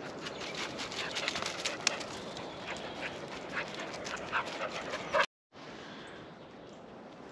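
English springer spaniels running over dry fallen leaves, their paws crunching and rustling in quick irregular crackles. The sound cuts off suddenly about five seconds in and returns quieter.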